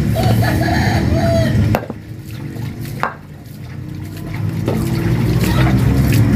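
A big knife chopping bone-in meat on a wooden block: a few sharp knocks, about two, three and nearly five seconds in, over a steady low rumble.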